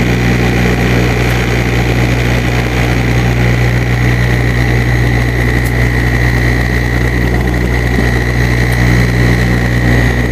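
Turboprop airliner's engines and propellers droning steadily, heard from inside the cabin. A high whine rides over the low drone and grows stronger about halfway through.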